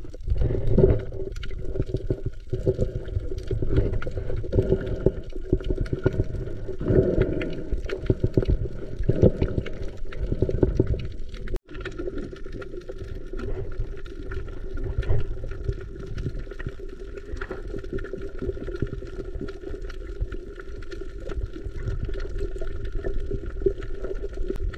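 Water sloshing and gurgling with many small knocks, over a steady hum and low rumble. The sound cuts out for an instant about halfway through.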